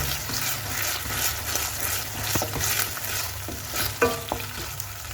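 Onion, capsicum and sauces sizzling in a pan over a high flame while being stirred, the spatula scraping through the mixture in repeated strokes, with a few sharp knocks against the pan.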